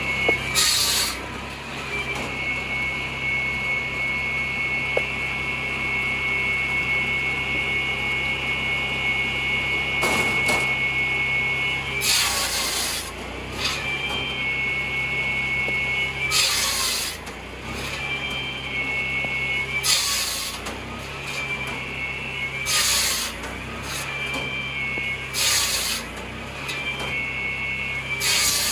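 Hartnett 13 hp petrol log saw running, its engine humming and its large circular blade whining steadily at high pitch. The blade cuts through firewood logs again and again, each cut a harsh rasp about a second long: one right at the start, one weaker near the middle, then a cut every three to four seconds through the second half.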